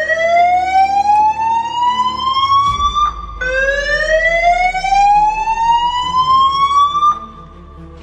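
Building fire alarm sounding a rising sweep tone twice: each sweep climbs steadily for about three and a half seconds, then starts again low, and the second cuts off about seven seconds in. It is a false alarm caused by a fault in the building's alarm system.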